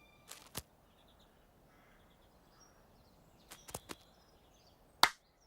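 Faint bird chirps over a quiet background, broken by a few brief sharp clicks: two near the start, a cluster about three and a half seconds in, and a louder one near the end.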